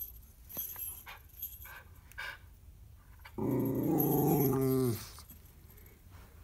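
Miniature schnauzer giving one low grumbling growl of about a second and a half, starting about three and a half seconds in and dipping in pitch as it ends. It is a watchdog's warning grumble at joggers passing outside.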